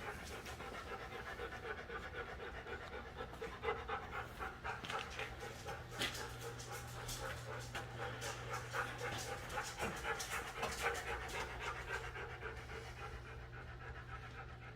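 Dog panting quickly and steadily, with a steady low hum underneath.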